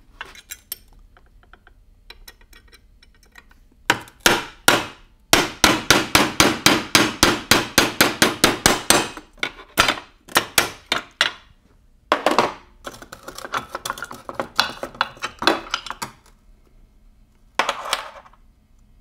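Hammer striking a pin punch to drive the 3/16-inch dowel out of a shift fork in a T5 five-speed transmission's top cover. A couple of blows come about four seconds in, then a quick, even run of about five blows a second for about four seconds, then slower blows and scattered lighter metal taps, with one more blow near the end.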